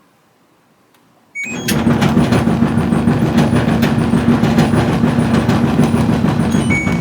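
LG DLE7200WE electric dryer starting up about a second and a half in, its drum turning with a loud, rough rumble. The rumble is the sign of worn drum support rollers. A short beep sounds near the end.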